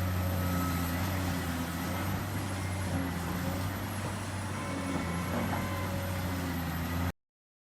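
Heavy diesel machinery at a quarry, excavators and haul trucks, running with a steady low engine drone that cuts off abruptly near the end.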